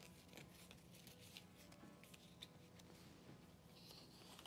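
Near silence: faint rustling and light ticks of a glossy leaf being folded and rolled by hand, over a low steady hum.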